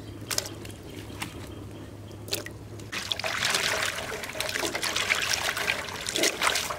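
Water trickling and splashing, with a few sharp clicks and knocks over the first seconds, then a louder stretch of pouring and splashing from about three seconds in.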